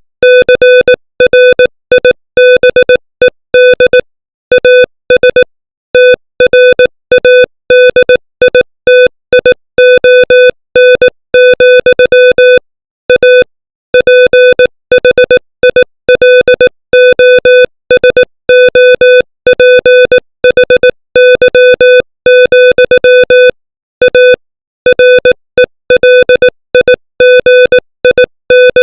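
Morse code sent as a steady electronic tone at 18 words per minute, keyed on and off in short dots and longer dashes, with brief pauses between letters and words.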